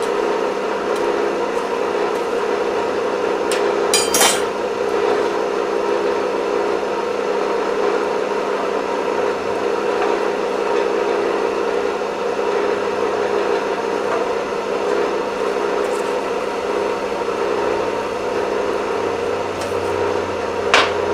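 Blacksmith's forge running steadily, its blower or burner making a constant hum while the iron heats in the fire, with a couple of short metallic clicks from the tools, one about four seconds in and one near the end.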